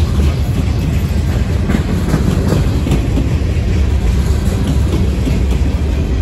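Freight cars (covered hoppers, boxcars and tank cars) rolling past close by: a loud, steady rumble of steel wheels on rail, with a few faint clicks.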